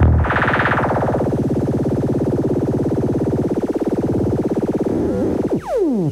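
Instrumental beat outro: a held synthesizer keyboard chord with a fast, even pulsing tremolo and no drums. Near the end several pitch sweeps fall sharply.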